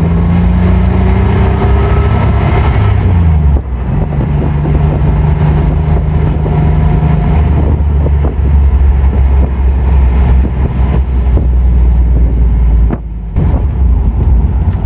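A 1987 Porsche 911 Carrera's air-cooled 3.2-litre flat-six engine running as the car drives, heard from inside the cabin. The pitch rises over the first few seconds as the car accelerates, with a brief drop in level about three and a half seconds in and another near the end.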